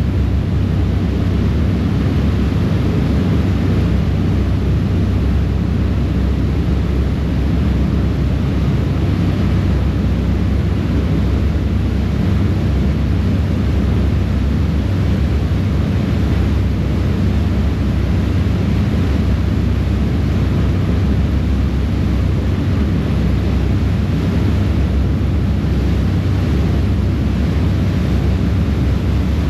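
Harbour ferry under way: its engines give a steady deep drone over the rushing of the churning wake, with wind noise on the microphone.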